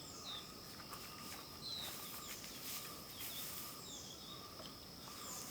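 Faint countryside ambience: a steady high insect drone with short, repeated bird chirps.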